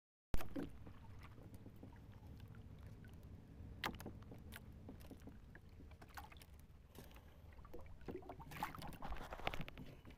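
Small wooden outrigger canoe at sea: a steady low rumble of wind and water, with scattered clicks and rustling as hands work a fishing hand line. The handling noise is busiest near the end.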